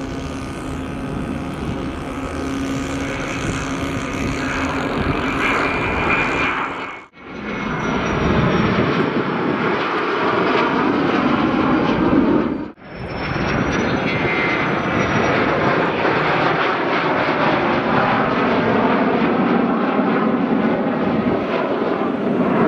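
F-16 fighter jets on landing approach with gear down: steady jet engine noise with a faint high whine, broken by two brief dropouts about seven and thirteen seconds in.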